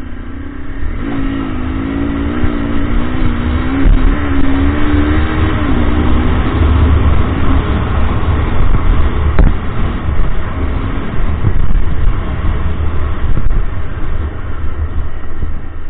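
Honda CBR250R's single-cylinder engine running while riding, its note wavering up and down for the first several seconds and then fading under a heavy low rumble of wind on the microphone.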